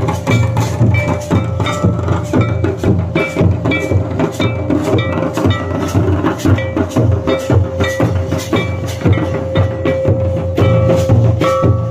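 Santali dance music: drums beating a quick, even rhythm of about three or four strokes a second under a short repeating high melody and a steady held note.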